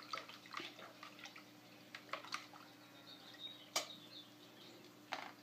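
Water being stirred in a small plastic bucket with a thin plastic stick: faint swishing, with light taps of the stick against the bucket wall and one sharper tap a little under four seconds in.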